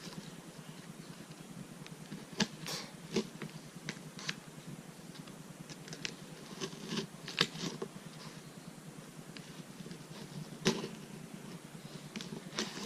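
Razor blade cutting through craft material: irregular short scratches and clicks, with a few louder snicks.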